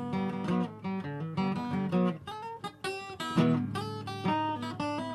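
Acoustic guitar playing an instrumental break: a run of quickly picked single notes over a strummed backing.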